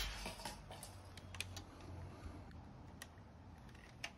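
The report of a Haenel 304 air rifle shot dying away at the start, followed by scattered light clicks and ticks from the rifle being handled, with a sharper click near the end.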